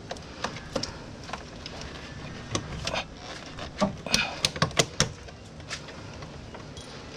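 Irregular light clicks and knocks of hand tools and plastic and metal parts being handled in a car's engine bay, most frequent about four to five seconds in.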